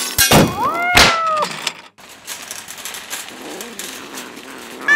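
Cat meowing: a few knocks at the start, then one drawn-out meow about half a second in that rises and falls, and a shorter falling meow at the very end.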